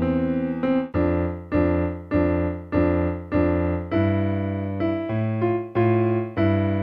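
Electronic keyboard played with both hands: a steady series of single struck notes, about two a second, each fading before the next, over sustained low notes.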